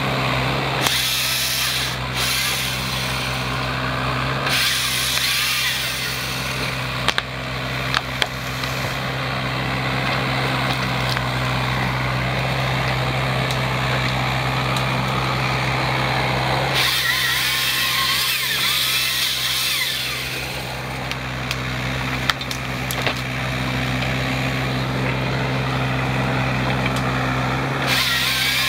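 Mini hydraulic excavator's diesel engine running steadily while its boom-mounted hydraulic saw head cuts through pine stems in stretches of harsh sawing noise. A few sharp cracks break through the running sound.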